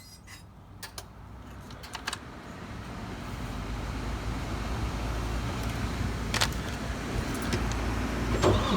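Semi truck's diesel engine starting up: a low rumble builds over the first few seconds and then runs steadily at idle. A couple of sharp clicks come in the first two seconds, and one more later.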